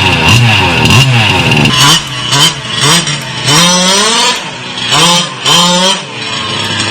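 Small petrol engine revved again and again: quick short blips at first, then several longer revs that rise and fall, with brief dips between them.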